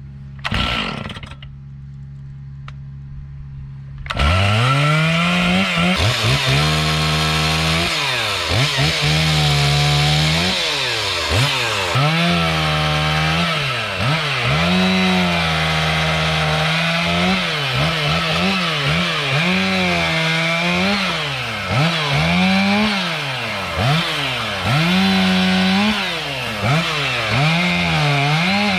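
Stihl MS 461 two-stroke chainsaw idling low, then going to full throttle about four seconds in and cutting firewood. The engine pitch drops under load as the chain bites and rises again between cuts, many times over.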